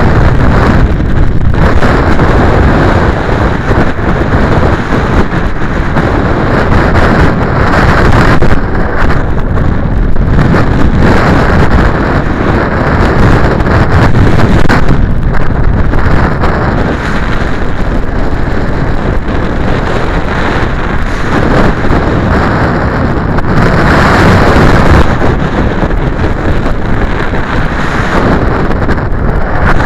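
Strong wind buffeting the microphone: a loud, rough rumble that rises and falls in gusts.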